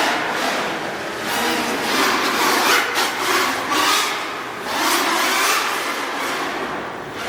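Five-inch FPV freestyle quadcopter in flight: its four 2207 1850kv brushless motors and propellers whine, swelling and falling with the throttle, mixed with the rush of air.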